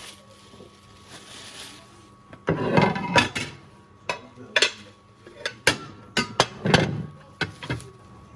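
Kitchenware clattering as food is dished up: a serving spoon knocking and scraping against a pot and plates in a string of knocks and clinks, loudest about three seconds in and again near seven seconds.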